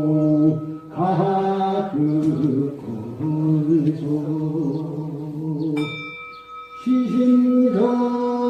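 Korean Buddhist chant sung by one voice in a slow melody of long held notes. About six seconds in, the voice pauses and a clear bell-like ringing tone sounds before the chanting resumes.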